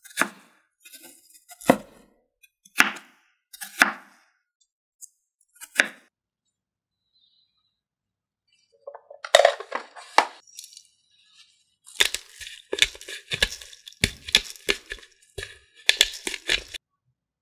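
Chef's knife chopping diced pork fat on a wooden cutting board, about five separate chops in the first six seconds. Near the end comes a quick run of sharp crackling clicks as black pepper is ground over minced pork.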